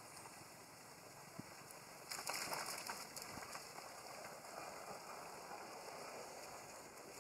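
Water splashing as macaques wade and wrestle in a shallow pool, with a louder burst of splashing about two seconds in that then settles to a fainter, steady sloshing.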